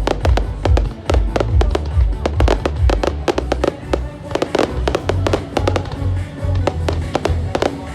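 Fireworks going off in quick, irregular bangs and crackles, several a second, over loud music with heavy bass.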